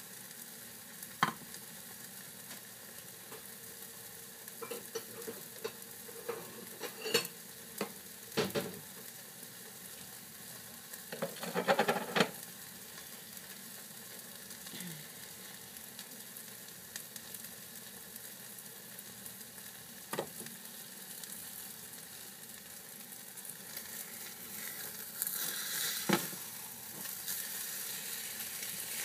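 Scrambled eggs sizzling in a frying pan, with scattered sharp clicks and knocks and a clattering stretch about twelve seconds in. Near the end a spatula stirs and scrapes the eggs around the pan.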